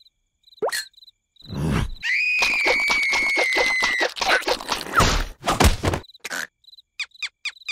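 Cartoon creature vocal effects: a held high squeal of about two seconds with a rapid pulsing through it, followed by short squeaks, grunts and snaps, with small cricket-like chirps between.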